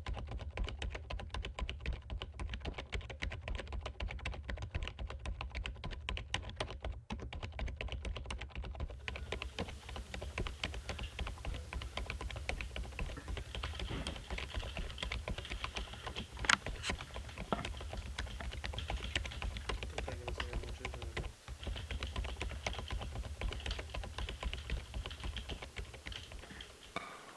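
Fast, continuous typing on a computer keyboard: a dense patter of key clicks, with one sharper key strike about halfway, over a steady low hum.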